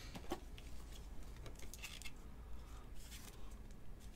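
Faint plastic rustling and light clicks as a trading card is handled in a clear plastic sleeve and holder, with a few brief crinkles between the clicks.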